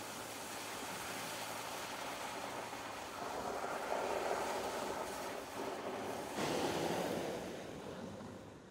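Mercedes E 220d 4Matic driving through snow and slush, its tyres making a steady rushing swish that swells twice as the car comes close and pulls away, then fades near the end.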